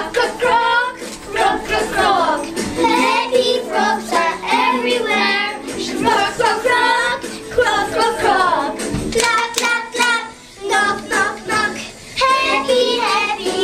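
A group of young children singing an English action song over a recorded backing track, with hand claps mixed in.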